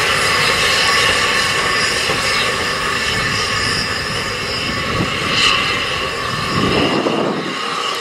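SECR P-class 0-6-0 tank locomotive No. 178 moving slowly off under steam: a steady, loud rush and hiss of escaping steam, without a clear chuff beat.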